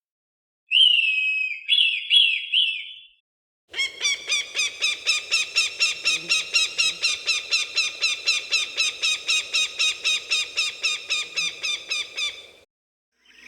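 Hawk calls: first a few short cries that drop in pitch, then a long, even series of sharp repeated notes, about three or four a second, that goes on for some nine seconds.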